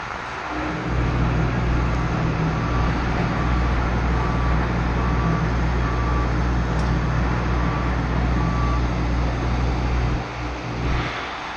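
A heavy construction machine's engine runs with a steady low hum, starting about a second in and cutting out near the end, with a faint beeping alarm repeating through the middle.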